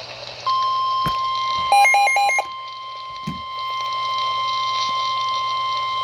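Weather radio sounding its steady single-pitch warning alarm tone, which comes on about half a second in, the attention signal that comes before a severe thunderstorm warning message. A short burst of rapid warbling beeps overlaps it about two seconds in.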